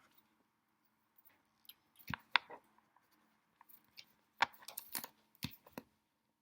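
Origami paper being handled and creased as a fold is finished, making short crinkles: two about two seconds in, then a quick cluster of several between about four and a half and six seconds.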